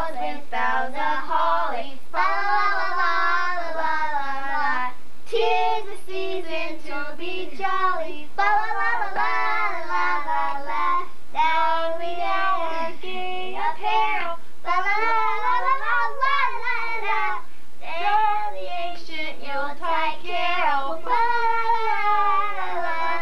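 A woman and young children singing a song together, in phrases of a few seconds with short breaks between them.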